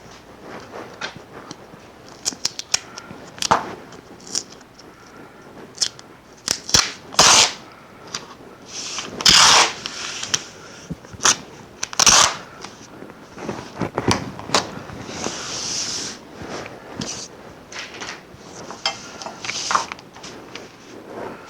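Paper being handled while a neon tube pattern is made: irregular clicks and taps, with several louder rustling swishes of paper sliding and crinkling.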